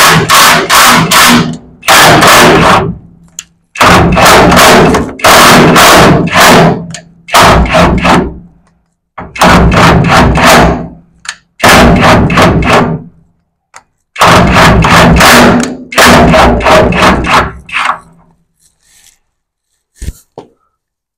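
A power tool driving a bed bolt in and out of a threaded bolt hole in a truck bed to clean up the threads: loud bursts of rapid hammering over a motor hum, about eight in a row, each one to two seconds long with short pauses between, stopping about 18 seconds in.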